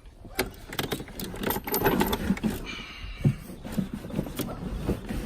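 Irregular clicks, knocks and scraping from plastic console parts and a wiring harness being handled and worked on by hand.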